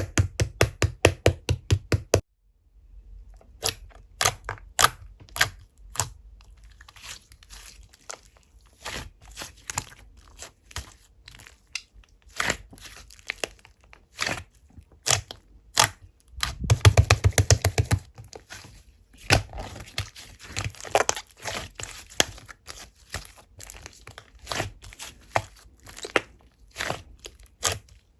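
Slime being pressed, poked and stretched by hand, giving sharp sticky pops and crackles. A quick run of about five pops a second stops about two seconds in, then the pops come irregularly, with a dense flurry about two-thirds of the way through.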